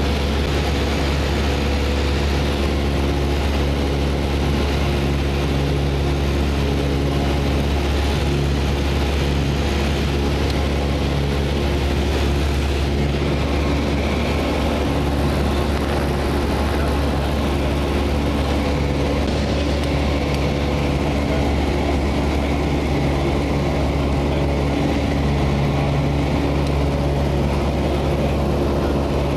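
Steady, unchanging drone of a light aircraft's engine and propeller, heard from inside the cabin.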